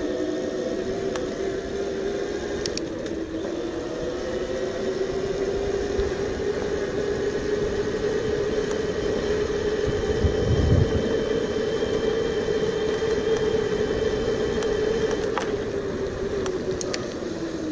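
Bafang BBS02 750 W mid-drive e-bike motor whining under power. Its pitch rises as the bike speeds up, holds steady, then falls near the end as it slows. A few sharp clicks come through, with a low thump about ten seconds in.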